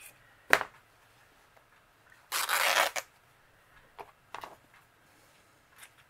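Cotton fabric torn by hand: one short, noisy rip about halfway through. A sharp click comes just before it, and a few light taps and rustles follow.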